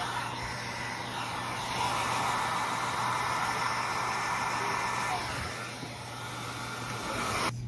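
A small motorised workshop tool running steadily with a rushing noise, rising and easing a little as it works, then stopping abruptly near the end.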